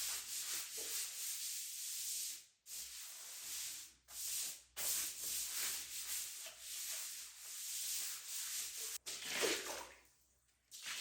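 Scrubbing: a continuous hard rubbing hiss made of back-and-forth strokes, broken by a few short pauses. It ends in a louder scrape and rustle about nine seconds in, then stops near the end.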